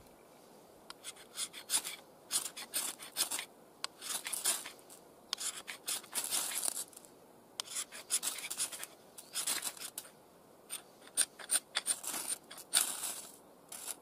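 Ferrocerium rod struck again and again with a Fallkniven Idun knife to throw sparks into fatwood shavings: many short, harsh scrapes in quick runs with brief pauses between them.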